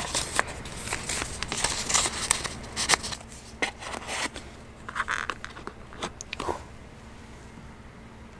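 Paper instruction leaflet and cardboard perfume box handled close up: rustling, crackling and light taps, thinning out after about four seconds with a few last clicks, then stopping near the end.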